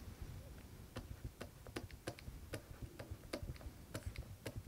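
Faint, irregular light clicks of a stylus tapping on a pen tablet while handwriting, about two or three a second.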